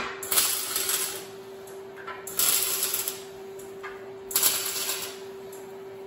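Wire-feed (MIG) welder with flux-core wire laying three short tack welds on steel, each a crackling burst just under a second long, over a steady background hum.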